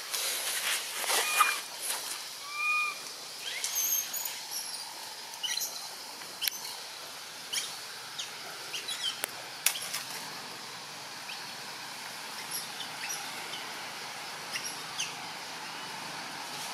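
Scattered short, high chirps and squeaks from animals in the trees, thick in the first few seconds and sparser after, over a steady outdoor hiss. There is one sharp click about ten seconds in.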